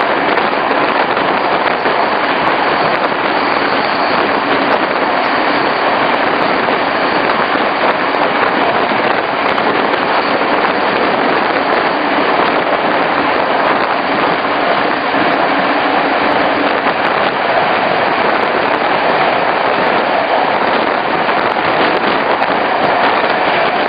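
Regional passenger train in motion, heard from on board: a loud, steady rushing noise of wheels on rail and air.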